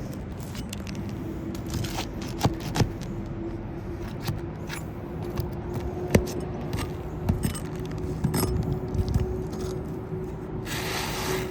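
Roof snake scraping and tapping against old, brittle asphalt shingles as they are worked loose from their nails: scattered sharp clicks and knocks over a rasping scrape, with a brighter, hissing scrape near the end. A steady low hum runs underneath.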